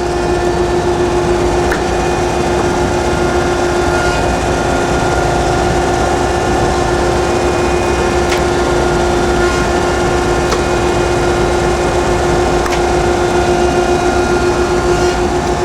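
Landis 1R universal cylindrical grinder running, its hydraulic system and 12-inch grinding wheel turning, giving a steady hum with a constant tone. A few faint ticks sound now and then.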